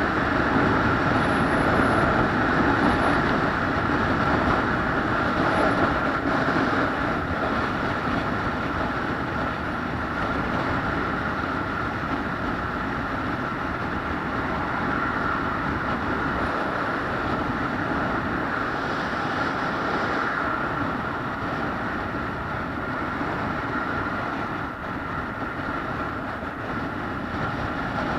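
Steady running noise of a moving vehicle, with a faint steady whine.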